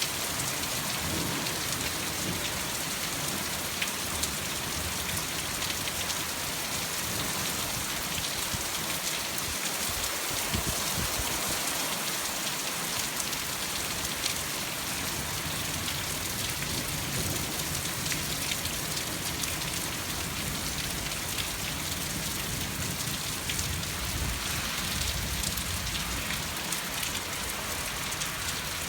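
Steady heavy rain falling and pattering on surfaces during a thunderstorm, with a low rumble that swells and fades now and then in the background.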